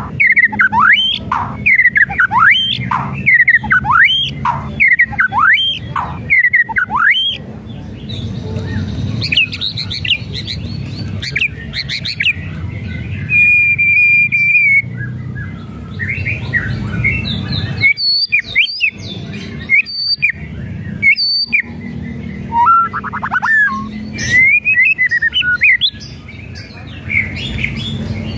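White-rumped shama singing. It opens with a fast run of repeated swooping whistles, about two a second, then moves to varied whistled phrases with one held note, a burst of sharp clicking notes, and a quick trill.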